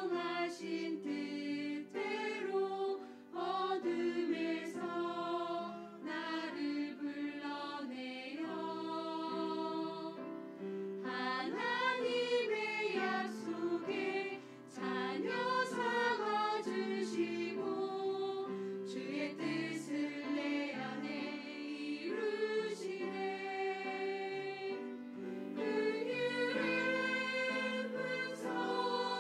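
Church choir singing an anthem together in held, sustained phrases, with a brief break about three seconds in and another near the middle.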